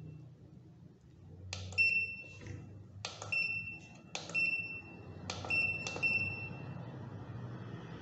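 Keypad of a Hikvision fingerprint time attendance terminal being pressed: about five or six button clicks, each answered by a short high beep, as the menus are worked.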